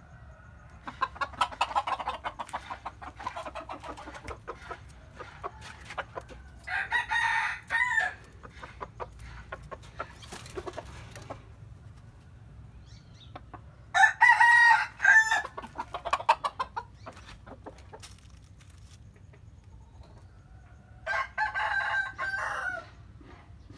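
A rooster crowing three times, about seven seconds apart; the middle crow is the loudest. Chickens cluck in a busy stretch near the start.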